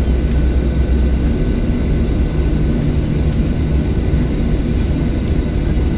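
Jet engine and airflow noise of a Boeing 737-700 heard inside the passenger cabin: a loud, steady rumble with a faint steady whine above it.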